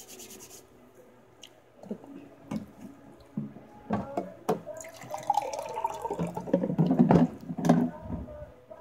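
Water poured from a plastic jug into a drinking glass, a few seconds of steady pouring and filling in the second half. A few light clicks and knocks of the jug and glass come before it.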